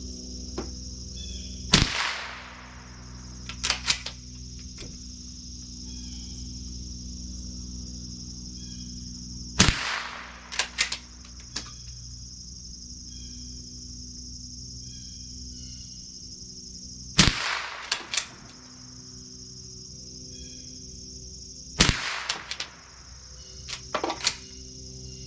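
Four .22 Long Rifle shots from a Remington Model 12 pump-action rifle, several seconds apart, each followed by a few quick clicks of the slide action being worked. Insects shrill steadily in the background.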